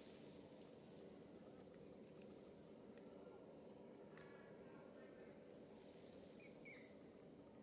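Faint outdoor ambience: a steady high-pitched insect drone, with a couple of brief faint chirps about four and six and a half seconds in.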